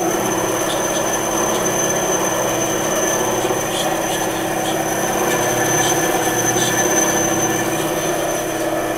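Ryobi benchtop band saw running free with no wood in the blade, a steady motor and blade noise with a thin high-pitched whine over it. This is a second test start after the blade was reset, and the saw is now running as it should.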